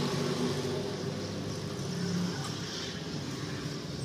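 Steady low mechanical hum of a running machine, without speech.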